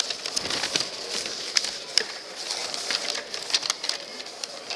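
Sheets of paper rustling and crackling as they are unfolded and shuffled close to a podium microphone: an irregular run of short, crisp crackles.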